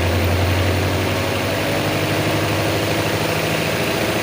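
Spin dryer of a MarQ 7 kg semi-automatic washing machine spinning a load of washed clothes: a steady motor hum.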